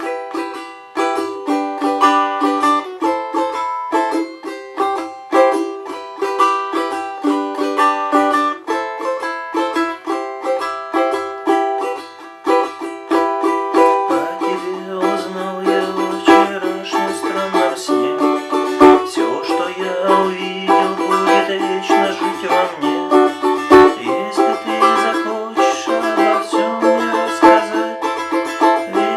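Balalaika played with fast, rapidly repeated strokes, sounding chords and a melody; about halfway through a lower held note joins beneath.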